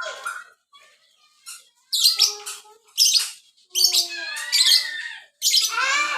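Lovebird chattering in bursts of shrill chirps and squawks, which come thicker and longer in the second half.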